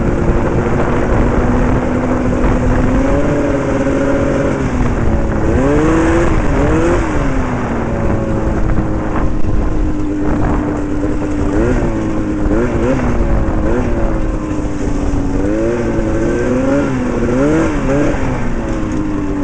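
Twin-cylinder two-stroke engine from a 1979 Arctic Cat El Tigre 5000 snowmobile, driving a go-kart under way. It holds steady revs for stretches and several times drops and picks back up in quick swoops, around five seconds in, about twelve seconds in, and repeatedly near the end, over a steady rushing noise.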